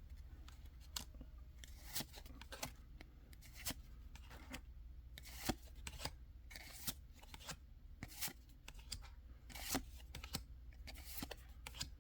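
Pokémon trading cards being flicked one by one from the back of a freshly opened booster pack to the front: a faint, irregular string of short card snaps and slides, about one or two a second.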